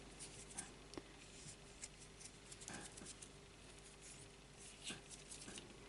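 Near silence with faint rustles and small ticks: fingers picking stray glue (silicone) off a crocheted piece.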